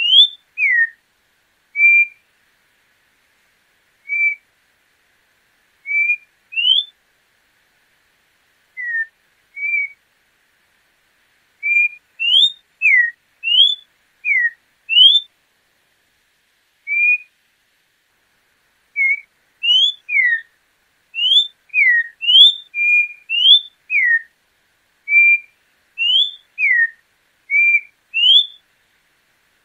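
Orange-backed troupial (João-pinto) singing: short, clear whistled notes, each a quick upward or downward slide or a brief level note. They come singly or in loose runs of two to four, with pauses of a second or more between them and a longer gap around the middle.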